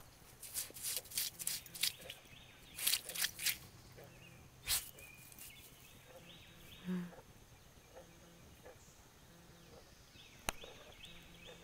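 Schnoodle digging in dirt and gravel: short bursts of claws scraping, several in the first few seconds, one more near five seconds, then a single sharp click near the end.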